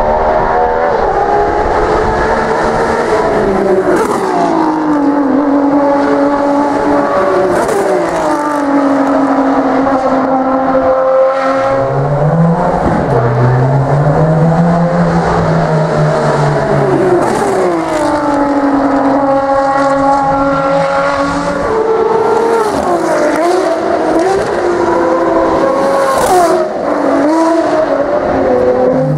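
Ferrari 599 XX track cars' V12 engines running hard on a circuit, the pitch climbing under acceleration and dropping at each gear change or lift, with two cars heard at once around the middle.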